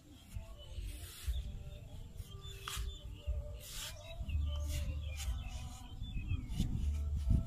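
Long-handled digging tool chopping and scraping into wet clay soil, about six irregular strokes roughly a second apart, over a low steady rumble.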